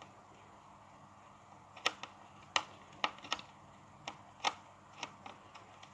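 Screwdriver turning a screw into the plastic housing of a TP-Link CPE220 access point: a string of small, irregular clicks starting about two seconds in.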